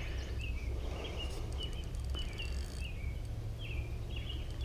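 Short high chirps that dip in pitch, repeating about twice a second, over a steady low rumble.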